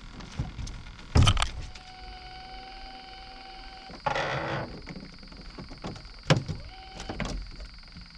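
Knocks and thumps on a metal jon boat as the angler handles his fish and settles into his seat. The loudest comes about a second in and two more near the end, with a half-second rush of noise around the middle.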